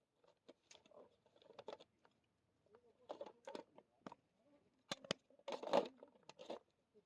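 Irregular light knocks and clicks, a dozen or so, with a few short scraping rustles in between, loudest about five to six seconds in.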